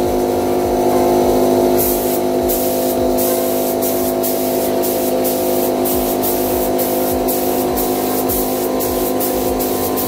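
Compressed-air paint spray gun hissing as it sprays, over background music with a steady beat.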